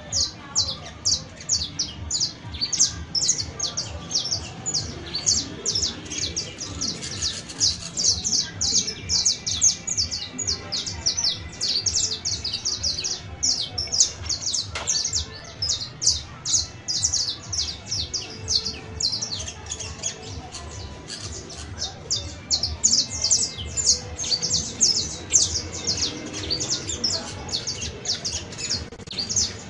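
Saffron finch (canario criollo) singing without a break: a fast run of sharp, high chirps, several a second, easing a little about twenty seconds in.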